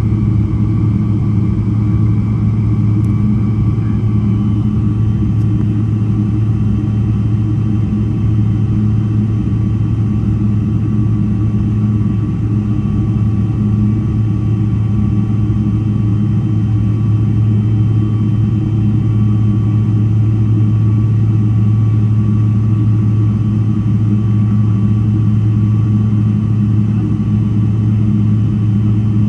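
Cabin noise inside a Boeing 777-300ER taxiing before take-off: its GE90 engines near idle and the cabin air give a steady low hum, with a few faint steady whines above it.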